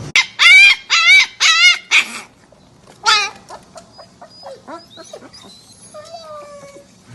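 A dog whining: four loud, high, wavering calls in quick succession, another about a second later, then softer short whimpers and one falling call.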